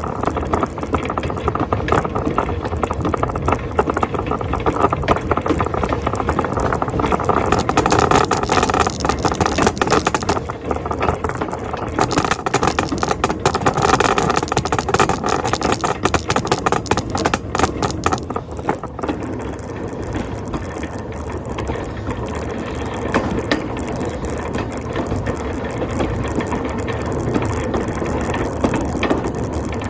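Shopping cart rattling steadily, its wheels clattering as it is pushed over pavement.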